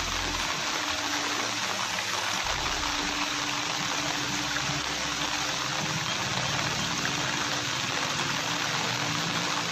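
Water flowing with a steady, even rushing hiss.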